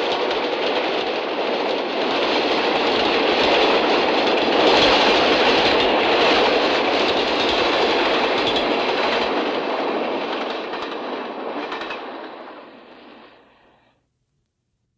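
Diesel locomotive and its train passing fast, with a dense rush of running noise and rapid clickety-clack of wheels over rail joints. It is loudest about five seconds in, then dies away over the last few seconds.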